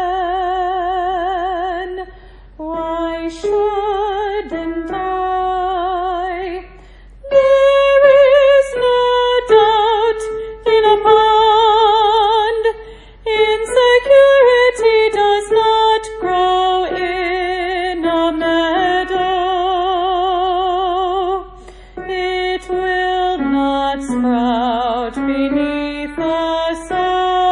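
A high female voice singing the Soprano 1 line of an SSAA choral piece with vibrato, in sustained phrases separated by brief breaths.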